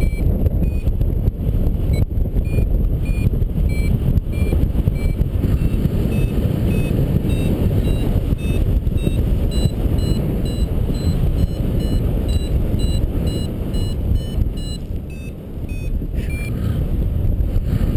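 Paragliding variometer beeping its climb tone, short beeps a couple of times a second that rise in pitch and come faster through the middle, signalling the glider is climbing; the beeps stop about three seconds before the end. Under them, steady wind rushing over the microphone in flight.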